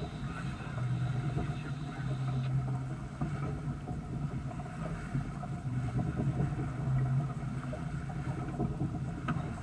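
Water rushing and splashing along the hull of a sailboat under way, over a steady low rumble that swells and eases.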